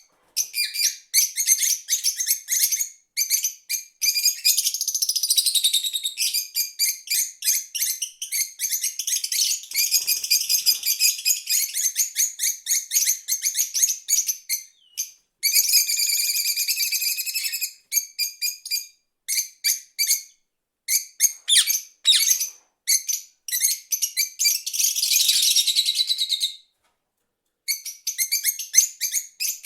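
Exotic birds chirping and calling in rapid, high-pitched bursts of chirps and warbles, with a few brief silent pauses.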